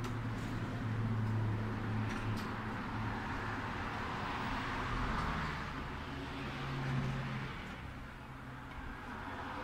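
Steady background vehicle-engine noise with a wavering low hum, plus a few faint clicks from a plastic fuel pump module being pried apart by hand.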